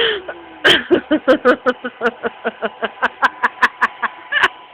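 A person laughing: a long run of quick, pitched pulses, about five a second, stopping shortly before the end.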